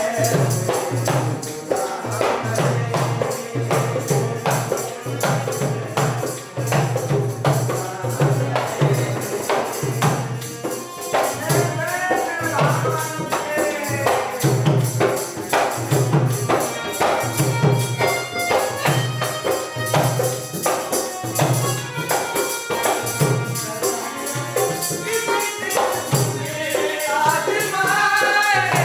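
Live Indian folk-style music: a dholak keeps a steady beat under a harmonium. A voice sings a melody about twelve seconds in and again near the end.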